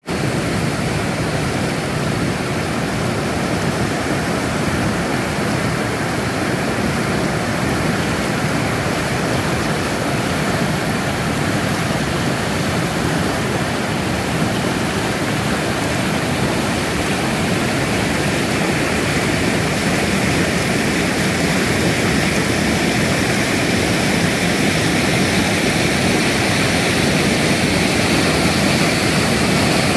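Whitewater rapids rushing over rocks in a steady, loud roar, getting a little louder in the second half.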